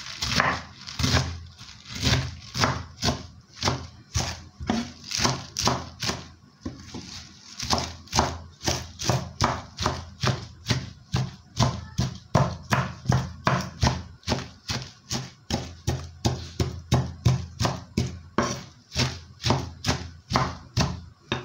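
Kitchen knife chopping spinach leaves on a wooden cutting board: a steady run of knife strokes knocking on the board, about two to three a second, lighter for a moment around seven seconds in.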